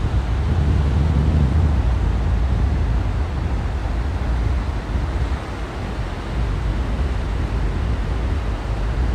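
Sea surf washing in, with wind rumbling on the microphone: a loud, steady rush of noise with a heavy low rumble.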